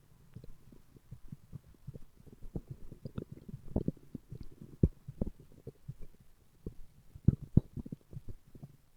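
A man's stomach growling: a string of irregular low gurgles and pops, with the strongest just before the middle and again about three quarters of the way through.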